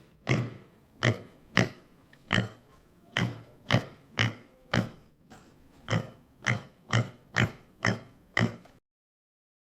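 A farm animal making about fourteen short, low grunting calls, roughly two a second, that stop shortly before the end.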